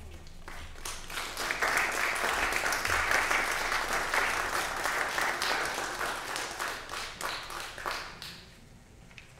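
Congregation applauding: many hands clapping, building over the first second or so and dying away after about eight seconds.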